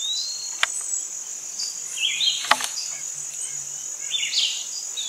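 Steady, high-pitched insect chorus of a late-summer woodland. Over it there is a short rising whistle right at the start, brief chirps about two and four seconds in, and a couple of sharp clicks.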